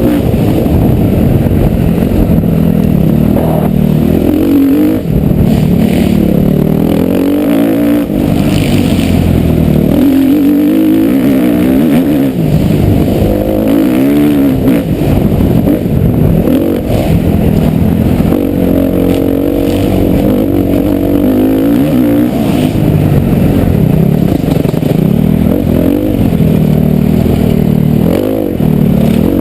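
Motocross bike engine being ridden hard, revving up and dropping back again and again as the throttle is worked.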